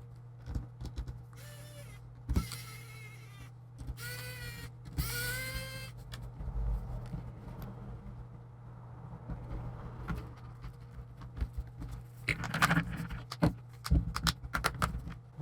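Plastic laptop lid and panel parts being handled and flexed: three short squeaky creaks in the first half, then a run of clicks and taps near the end, over a steady low hum.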